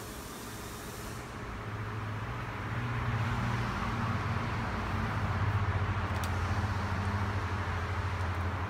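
Low, steady engine-like hum that builds up about two seconds in and then holds, from a vehicle or machine running in the workshop, with one light click near the middle.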